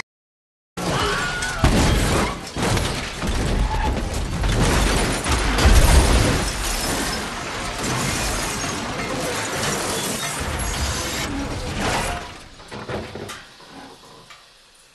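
Car crash: a car slams in and rolls over, with crunching metal, shattering glass and repeated heavy impacts. It starts suddenly after a brief silence, is loudest about six seconds in, then the debris settles and the sound fades away over the last few seconds.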